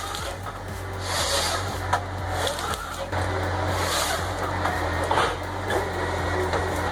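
Timber Pro TN725-B harvester's engine running steadily, with a few short noisy bursts from the harvester head working the wood.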